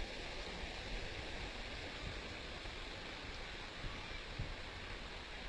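Muddy storm runoff rushing down an unpaved dirt road, a steady wash of flowing water with some low rumbling underneath.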